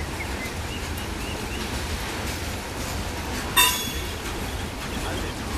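Steam train of Southern Railway 2-8-0 No. 630 rolling past with a steady low rumble, and a single short, sharp ringing sound about three and a half seconds in.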